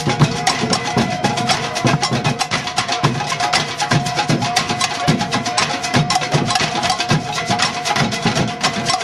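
Percussion music with a quick, steady beat: rapid clicking strokes over low drum hits about twice a second, with a held tone underneath.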